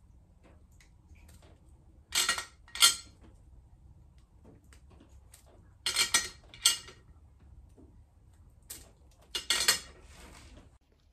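Metal clinking and scraping as new spark plugs held in a metal bracket are gapped to 30 thou with a gapping tool. It comes in three short bursts of two or three sharp clinks each, about a second apart.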